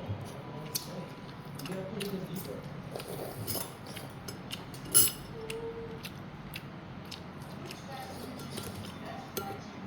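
Scattered light clinks and clicks of cutlery against bowls and dishes at a hotpot meal, with one sharper, louder clink about five seconds in, over faint background talk.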